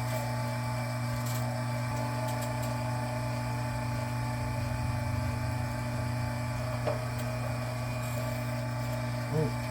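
Electric wire stripping machine's motor running with a steady hum, with a few faint ticks.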